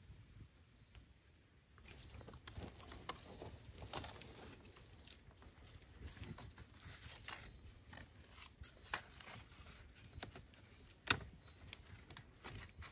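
Handling noise as a thin cane hoop is moved and pressed against a wall of upright wooden sticks: scattered light clicks, taps and scraping rustles starting about two seconds in, with one sharper click near the end.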